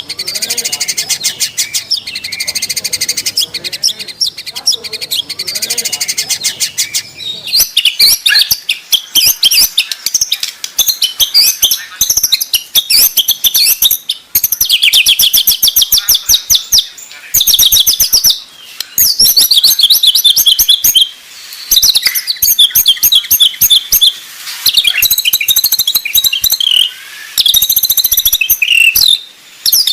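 White-rumped shama (murai batu) song: loud, rapid-fire strings of sharp, high repeated notes and trills, delivered in quick bursts with short breaks. About seven seconds in, the recording shifts to an even denser run of fast repeated notes.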